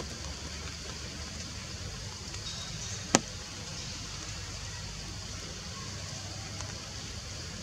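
Steady outdoor background noise, a low rumble under an even high hiss, with one sharp click about three seconds in.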